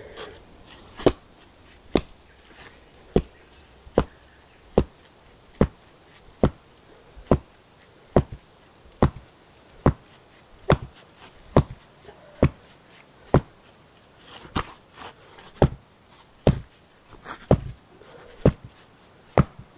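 A flat stone held in both hands pounds the top of a wooden stake, driving it into the earth to loosen the ground. It strikes steadily a little faster than once a second, about twenty blows in all.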